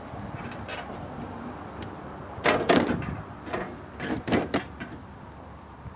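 Sharp knocks and clatter as an RV vent assembly is handled and pushed into its panel opening for a dry fit, a quick run of them about two and a half seconds in and a few more near four seconds.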